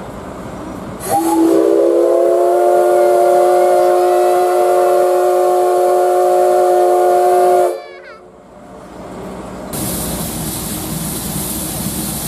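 Steam whistle of the C11-class tank locomotive C11 325, sounding one long steady blast that starts about a second in, lasts about six and a half seconds and cuts off sharply, with a brief echo. A steady rushing noise follows near the end.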